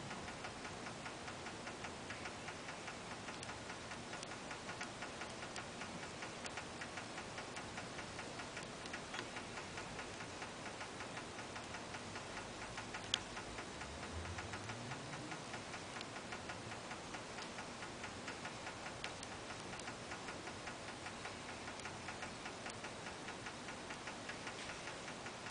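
African clawed frogs underwater, making a faint, fast, steady series of clicks while mating; this is not their usual croaking. About thirteen seconds in there is one sharper click, and shortly after comes a brief low rising sound.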